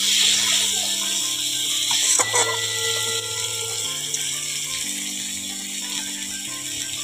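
Metal spatula scraping and stirring potatoes and papaya in spice paste in a hot metal wok, with a hissing sizzle. The sizzle is strongest in the first couple of seconds, and the spatula gives a sharp clank against the pan about two seconds in.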